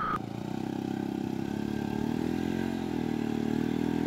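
Motorcycle engines running at low revs while being ridden slowly through deep mud, the engine note rising and falling gently with the throttle.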